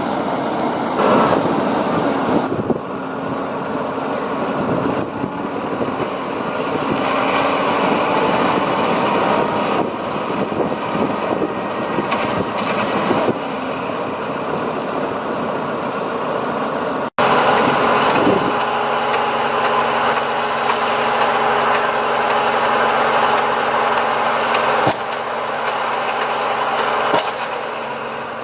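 Heavy diesel machinery engines running continuously. After a brief cut about two-thirds of the way in, one engine runs at a steady pitch.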